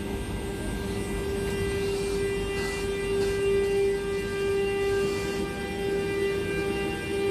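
Pair of Br 185 electric locomotives moving slowly, their electrical equipment giving a steady whine: one strong mid-pitched tone with fainter higher tones above it, over a low rumble.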